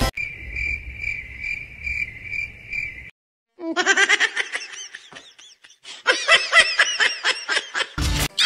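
Cricket-chirping sound effect, pulsing evenly about two or three times a second for about three seconds. After a brief gap comes a run of high-pitched giggling laughter, and a short low thump comes near the end.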